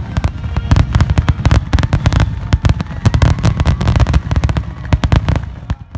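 Aerial fireworks going off in a dense, rapid barrage of bangs and crackles, thinning out and cutting off suddenly near the end.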